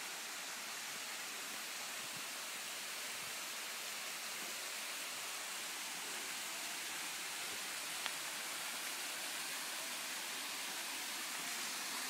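Steady rush of water from a small mountain waterfall and its stream, growing slightly louder, with a single faint click about eight seconds in.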